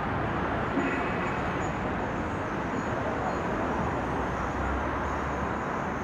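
Steady background noise of city street traffic, an even hum of passing cars with no distinct events.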